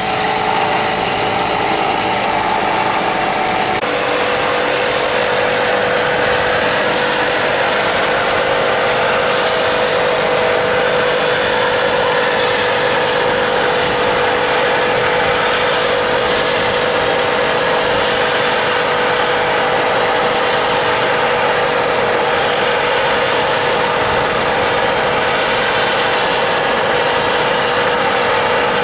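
Steady machine drone with a constant tone, running throughout; about four seconds in the tone steps down in pitch and then holds steady.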